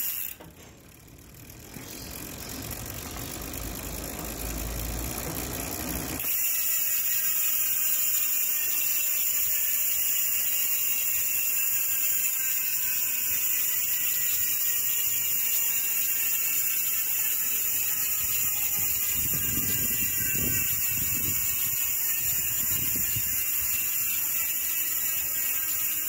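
Strummer 280 rear freehub on a spinning bicycle wheel, its pawls clicking so fast that they run together into a steady buzz. The buzz starts about six seconds in, after a stretch of rushing noise, and its pitch falls slowly as the wheel coasts down.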